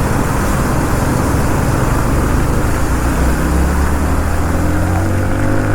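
Yamaha MT-15's 155 cc single-cylinder engine under a steady rush of wind and rain on the rider's microphone; about halfway through the engine note comes up and climbs in pitch as the bike accelerates.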